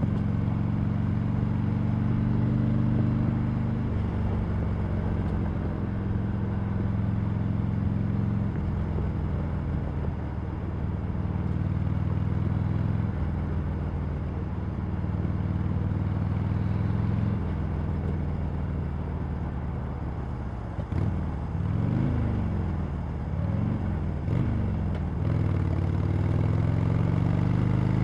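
Harley-Davidson Sportster Iron 883's stock-exhausted air-cooled V-twin running at steady revs, its pitch stepping up or down every few seconds. Near the end the revs climb and drop three or four times in quick succession, then settle into a steady run again.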